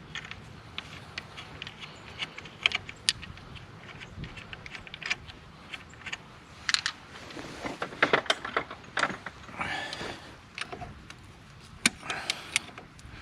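Pliers clicking and scraping against a rusted cotter pin in a Dana 30 front axle spindle nut as the pin is bent straight, with scattered sharp metal taps and a busier stretch of knocks about two-thirds of the way through.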